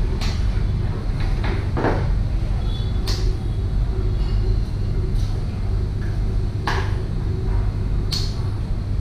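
Scattered sharp taps and clicks from kitchen work, with eggs being cracked with a knife and a ladle stirring in a pan, over a steady low rumble.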